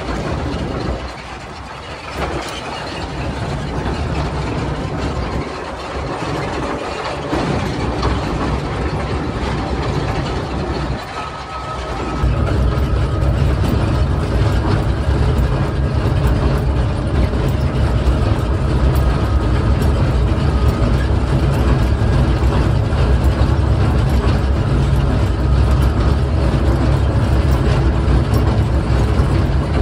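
Hokuriku Juki Kogyo narrow-gauge diesel locomotive running, with rattling knocks over the first dozen seconds. About twelve seconds in, its deep engine drone gets louder and holds steady, as heard inside the cab.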